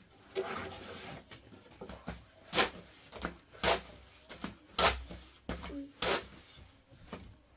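A series of sharp knocks and clatters, roughly one a second at uneven spacing, after a brief stretch of voice near the start.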